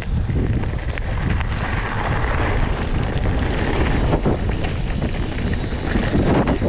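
Wind rushing over an action camera's microphone as a Trek Fuel EX 8 full-suspension mountain bike rolls along a dirt forest singletrack, with tyre rumble and a few knocks from the bike over the rough trail.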